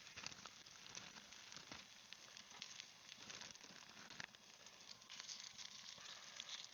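Food frying in a hot pan: a faint, steady sizzle with scattered small pops and crackles.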